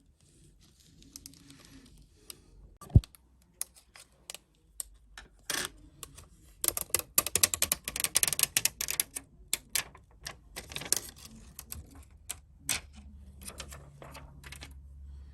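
Rapid small clicks, taps and crackles from handling iPhone XR parts and repair tools during reassembly, densest in a flurry from about six to ten seconds in. A single sharp knock about three seconds in is the loudest sound.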